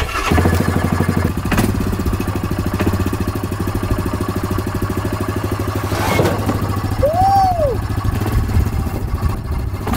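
Yamaha ATV engine running steadily at low revs while the quad is ridden across a wooden trailer deck. There is a single knock about six seconds in.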